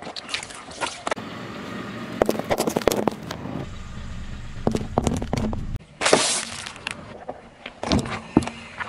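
Car tyres rolling slowly over small objects on asphalt, with repeated sharp cracks, snaps and crunches as the objects are crushed under the tread. The sound changes abruptly a few times as one crush gives way to the next.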